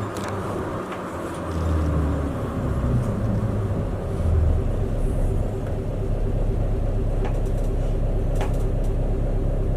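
City bus engine and road noise heard from inside the cabin. The engine note shifts over the first few seconds, then settles into a steady low hum.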